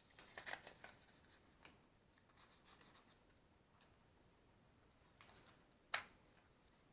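Faint handling sounds: a quick cluster of small clicks and scrapes at the start, a few light ticks after, and one sharp click about six seconds in.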